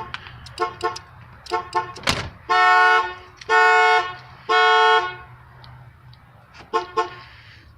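Car horn sounded by a newly installed Viper 3106V alarm that the opened door has triggered: a few short toots, then three long, even honks about a second apart, and a last short toot near the end.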